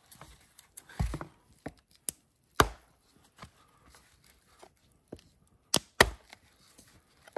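Hatchet chopping into a long piece of firewood to split it: sharp wooden blows a second or more apart, the heaviest about a second in, near the middle, and a close pair late on.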